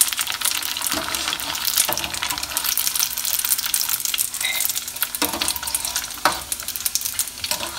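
Flour-coated macaroni deep-frying in medium-hot oil, a steady dense sizzle and crackle, with a few knocks about a second apart here and there as a wire skimmer moves between the pot and a bowl.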